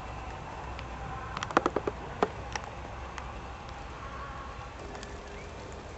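Scattered raindrops tapping on a car's windshield and body, heard from inside, with a quick run of several taps about a second and a half in and single taps after, over a steady low background hum.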